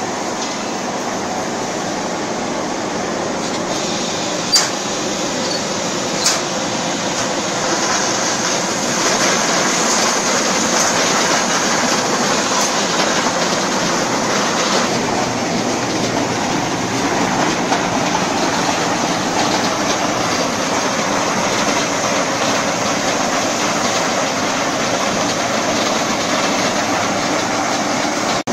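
Garlic grading machine running: garlic bulbs clattering along its belt conveyor and sheet-metal grading section in a steady, dense rattle over the motor noise, with two sharp knocks about four and six seconds in.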